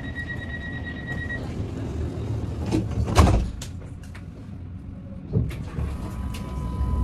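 Sydney light rail tram (Alstom Citadis) at a stop: a steady high beep for about the first second and a half, then the sliding doors closing with a loud knock about three seconds in. The tram's steady hum runs underneath, with a second smaller knock and a steady whine coming in near the end.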